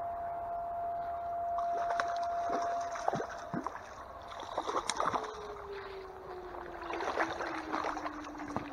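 A hooked brown trout splashing and thrashing in shallow stream water as it is played in and led into a landing net, with a string of short splashes. A faint steady whine sits under it, holding one pitch at first and then slowly dropping in pitch about halfway through.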